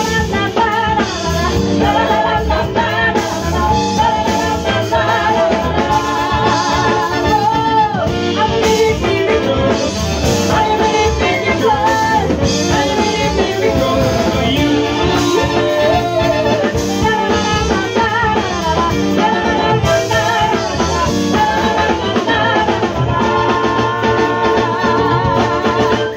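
Live soul-funk band playing with a woman singing lead, backed by a male backing vocal, saxophones, trumpet, bass guitar, keyboard and drums.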